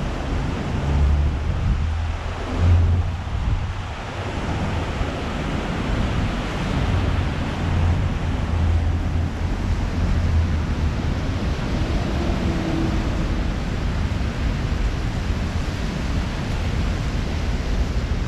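Wind blowing across the microphone: a steady rushing hiss with gusty low rumbles that come and go, strongest in the first half.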